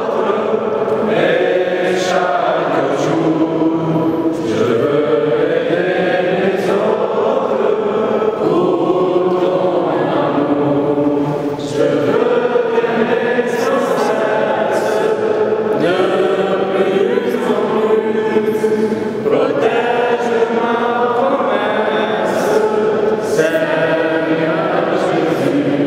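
A choir chanting a hymn, many voices holding long notes that change every second or two.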